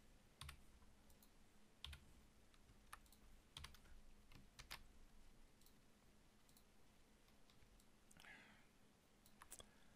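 Faint, scattered clicks of a computer mouse and keyboard, irregularly spaced over near-silent room tone.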